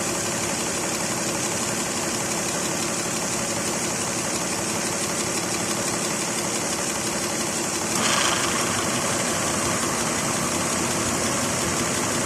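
2006 Lexus ES 330's 3.3-litre 3MZ-FE V6 idling steadily with the previously fitted drive belt swapped back on, with no metal-on-metal grinding from around the alternator and AC compressor. About eight seconds in, the running sound gets slightly louder and brighter.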